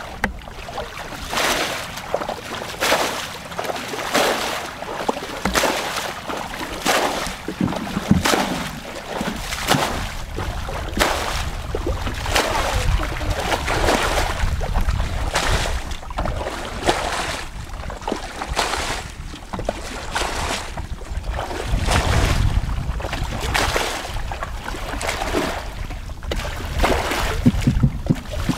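Water splashing as a plastic bucket is repeatedly scooped through shallow muddy water and the load flung out, bailing a flooded channel dry; a splash about every second and a half.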